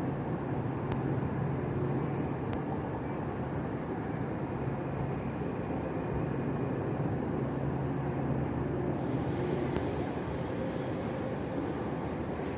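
Night-time outdoor ambience: a steady low rumble of distant vehicles, with a thin high steady tone above it that grows fuller about nine seconds in.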